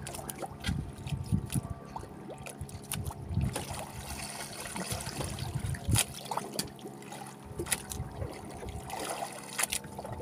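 Water lapping and trickling against the hull of a small wooden fishing boat, with scattered sharp knocks and clicks while a handline is hauled in hand over hand.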